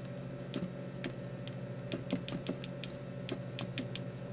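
Irregular light clicks and ticks as a battery-driven Star-Challis coil and a 1-inch neodymium sphere magnet tug and jerk against each other on a tabletop, over a faint steady hum.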